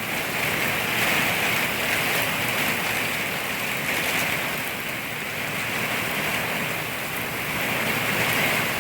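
Heavy thunderstorm rain pouring down in a steady, intense downpour that swells and eases slightly every few seconds.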